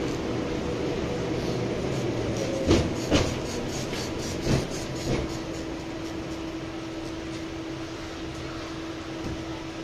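Interior of a 71-619 tram running along the track: steady running noise with four sharp knocks between about three and five seconds in. After that a steady hum carries on and the noise slowly grows quieter.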